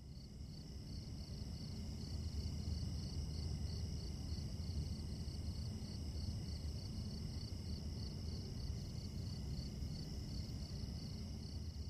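Faint night ambience: crickets chirping in an even pulsing trill, a few chirps a second, with steady high insect tones over a low rumbling background.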